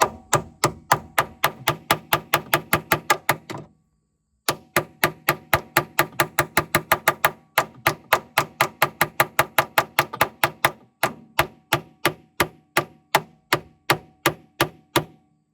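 Hammer blows on a metal pin-removal tool, driving a stuck, corroded door hinge pin out of a Jeep Wrangler JK door hinge. Sharp metal-on-metal strikes come about four a second in several runs with short pauses, each strike ringing briefly.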